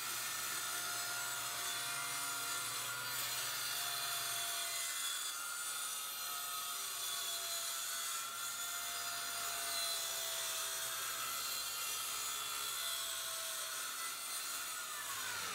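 Handheld circular saw cutting across a grooved slatwall panel: a steady whine under load with the rasp of the blade in the board, winding down in pitch right at the end.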